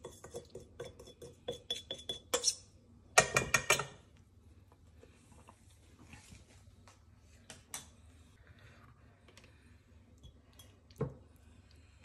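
A metal spoon clinking against spice jars and a mixing bowl. Quick light taps run for the first two seconds or so, a louder cluster of clatters comes about three seconds in, and after that there is only one knock near the end.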